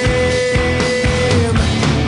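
Post-grunge rock band playing: electric guitar, bass guitar and drums, with one note held for about a second and a half over the beat.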